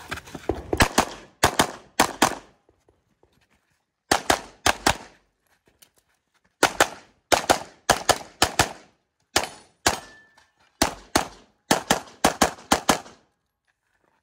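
Rapid pistol fire from a red-dot-sighted Carry Optics handgun, shots mostly in quick pairs, in bursts separated by pauses of a second or two. The shooting stops about a second before the end.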